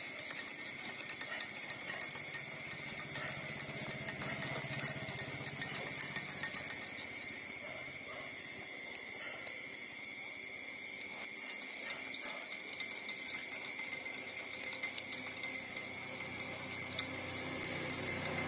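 Newborn puppies suckling at their mother's teats: runs of quick small wet clicks that pause for a few seconds midway, then start again. A steady high-pitched insect buzz runs underneath.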